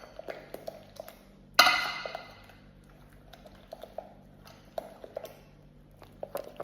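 Stirring thick Greek yogurt and protein powder in a large glass bowl: a utensil scraping and tapping against the glass in a run of small clicks, with one loud ringing clink about one and a half seconds in.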